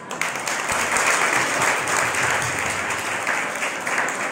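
Audience applauding, a dense round of many hands clapping that eases slightly near the end.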